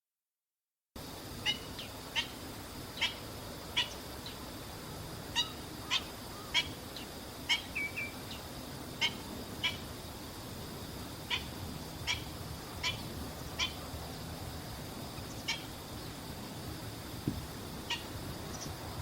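Black-winged stilt calling: short, sharp single notes repeated at an uneven pace of about one a second.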